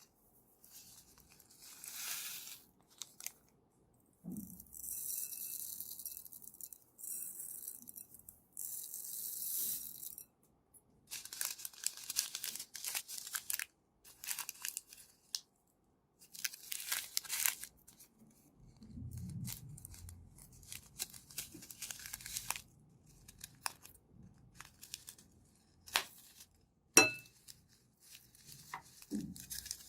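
Slime being squeezed, stretched and pressed by hand, giving irregular bursts of sticky, crackly noise with small pops and clicks, and one sharp click near the end.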